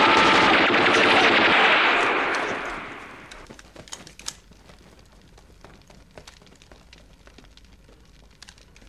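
Dense rapid automatic gunfire that dies away between about two and three seconds in, leaving scattered faint pops and clicks.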